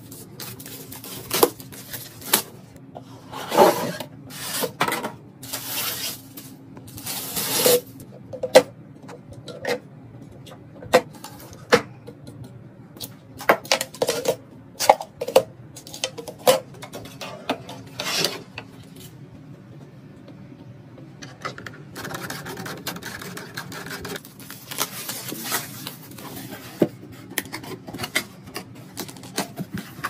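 Hands handling PC-build parts: repeated sharp clicks and knocks of plastic case fans and fittings against each other and the bracket, with rubbing and rustling between them.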